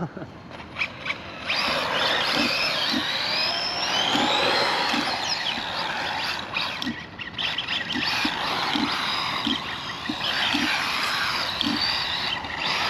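ZD Racing RX12 RC rally car's electric motor and drivetrain whining as it is driven hard, the pitch climbing and falling with each burst of throttle, over a hiss of tyre noise.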